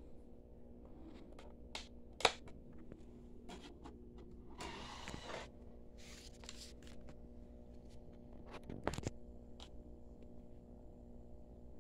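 Clicks and scrapes of a plastic DVD case and disc being handled, with a sharp snap about two seconds in as the disc comes free. A DVD player's disc tray then opens and closes: a short whirring noise about five seconds in and a sharp clack near nine seconds, over a steady low hum.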